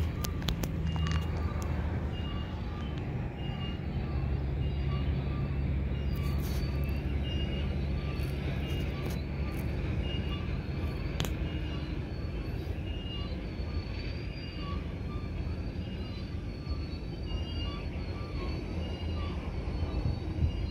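Freight train rolling past with a steady low rumble. A faint high squeak repeats at an even pace throughout, and scattered sharp clicks come near the start and again around the middle.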